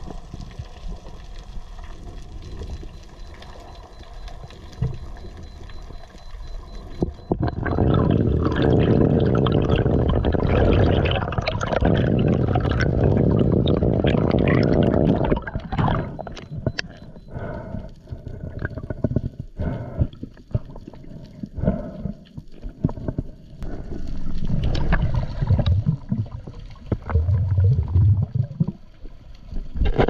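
Water noise around a free diver's camera: a fainter steady underwater hiss, then from about seven seconds in a loud rush of water and bubbles for about eight seconds, followed by irregular splashes and knocks.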